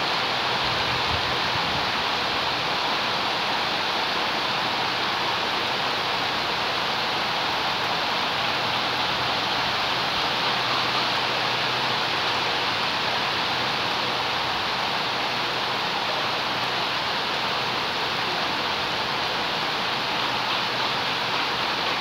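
Steady rain falling on leaves and waterlogged ground, an even hiss that holds the same level throughout.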